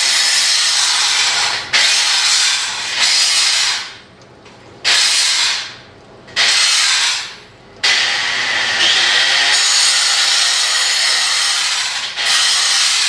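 Handheld grinder grinding the tack welds on a steel pipe joint, feathering their edges. The abrasive hiss comes in several long passes, dying away briefly about four, six and eight seconds in before starting again.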